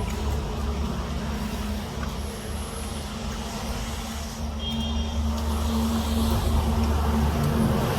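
Steady low engine rumble with a constant hum, like a motor vehicle running.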